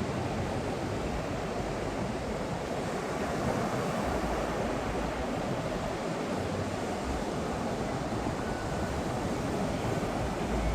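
Ocean surf washing steadily onto the beach, with some wind rumbling on the microphone.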